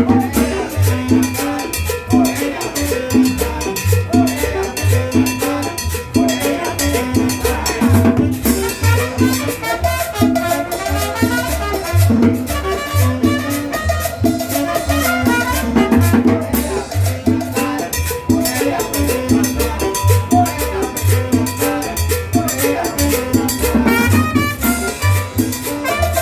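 Salsa music with a steady, repeating bass line and percussion.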